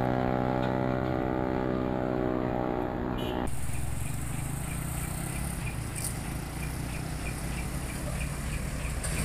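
Diesel engine of a container tractor truck pulling through a turn, a steady pitched drone that cuts off abruptly about three seconds in. After that comes broad traffic noise with a low engine rumble as another container truck approaches.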